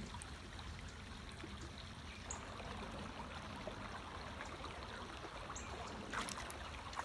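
Small creek water running steadily, with one brief louder noise about six seconds in.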